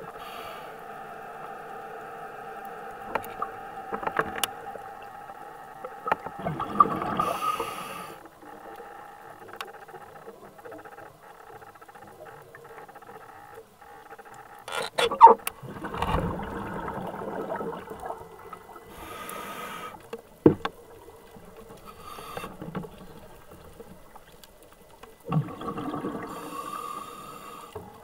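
Underwater ambience recorded on scuba: several surges of bubbling and hissing from a diver's breathing over a steady low hum.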